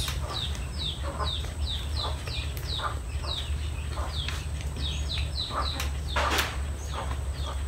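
Chickens peeping nearby: a steady run of short, falling, high peeps, about three a second, over a steady low hum, with one brief noisy burst a little after six seconds in.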